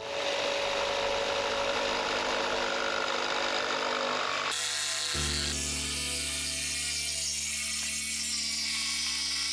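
Handheld electric power tool running and working a wooden board, a loud steady mechanical sound that changes character about halfway through to a lower, even hum.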